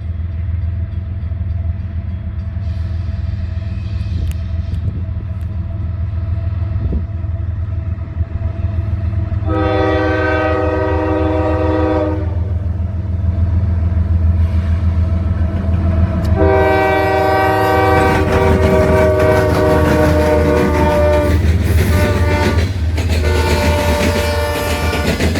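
A Union Pacific GE C45ACCTE leading a freight train sounds its five-chime Nathan K5H air horn over the steady rumble of diesel locomotive engines. It gives a blast of about two seconds, a longer one of about five, then a short one and a long one. Wheel clatter builds as the train passes near the end.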